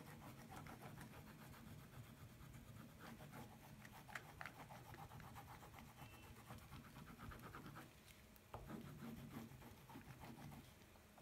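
Faint, rapid back-and-forth scratching of an orange pastel stick on paper as colour is laid down in short strokes.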